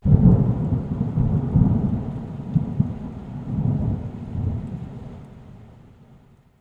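A thunderclap that starts suddenly and rolls on as a long, low rumble, swelling several times and fading away over about six seconds.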